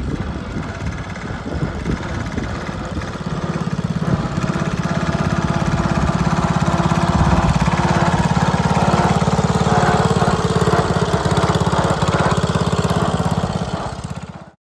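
Small garden tractor's engine running with an even, rapid firing beat, growing louder from about four seconds in as the tractor drives up and past. The sound cuts off abruptly just before the end.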